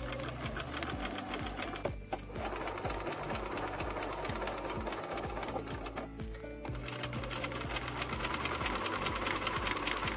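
Domestic electric sewing machine stitching fast, a rapid steady run of needle strokes as quilting is sewn through layered fabric and fleece. It stops briefly about two seconds in and again for about a second around six seconds in, then runs on.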